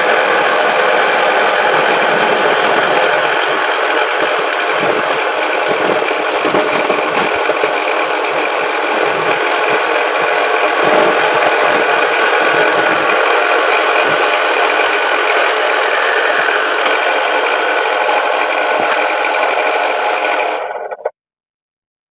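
A hacksaw blade held against a wooden goblet spinning on a wood lathe, cutting into the wood near the headstock to part the piece off. It makes a loud, steady rasping hiss over the running lathe and cuts off suddenly near the end.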